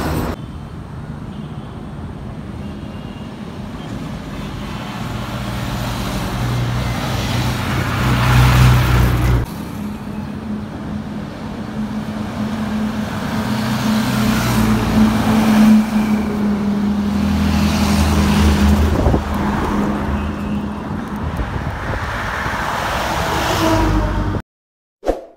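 Heavy lorries and other traffic passing on a highway: a steady engine drone swells into several loud pass-bys, one after another. The sound cuts off abruptly near the end.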